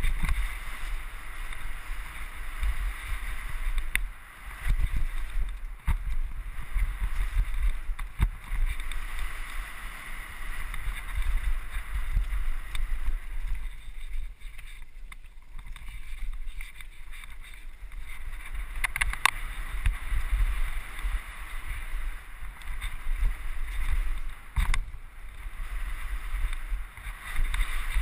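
Mountain bike riding fast down a dirt forest trail: tyre rumble over the ground and wind buffeting the microphone, with frequent knocks and rattles from bumps. The hiss eases off for a few seconds about halfway through, then returns.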